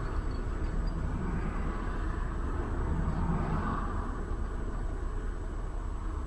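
Steady low rumble of road and engine noise from a vehicle driving along a highway.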